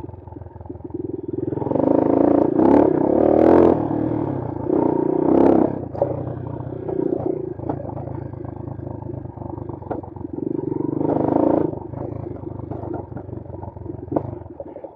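Bashan Brozz 250 dual-sport motorcycle engine running on a trail, surging louder several times as the throttle is opened, with scattered clattering knocks from the bike over rough ground.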